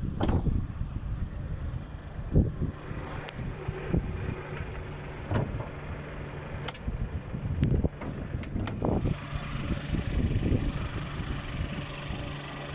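VW Polo 1.0 TSI three-cylinder petrol engine starting about two and a half seconds in, then idling steadily, with a few knocks over the idle.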